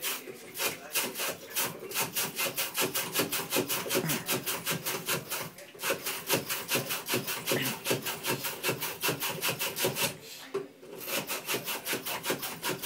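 Abrasive scrubbing on copper pipe in quick back-and-forth strokes, about five a second, with two short pauses, scouring green oxidation off the old pipe end so the solder will stick.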